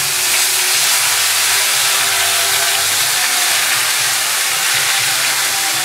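Chopped tomato sizzling loudly in hot oil in a kadai with whole spices, a steady hiss as the tomato's juice hits the oil and turns to steam.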